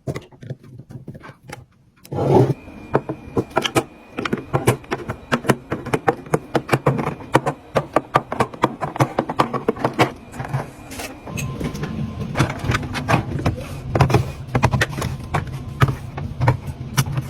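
Rapid, uneven taps, clicks and clatter of containers, bottles and packets being handled and set down while restocking a fridge, over a low steady hum.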